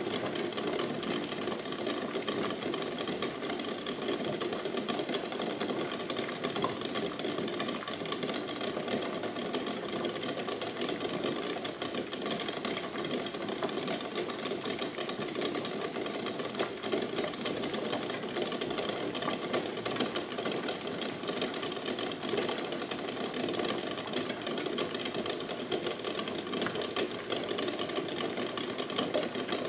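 Water at a rolling boil in a stainless steel pot, with the eggs in it rattling and knocking against the pot in a rapid, steady clatter.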